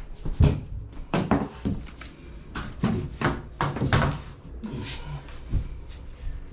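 Irregular wooden knocks and clatter, a dozen or so sharp hits spread over several seconds, from baseboard trim being handled and fitted along a hardwood floor.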